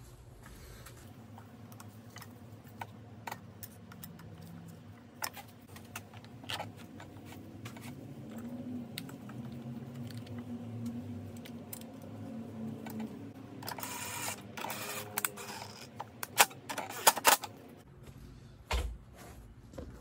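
Scattered small plastic clicks and rattles as gloved hands fit the air filter cover onto the mower's Kohler engine, with louder clicks and rustling about three-quarters of the way through.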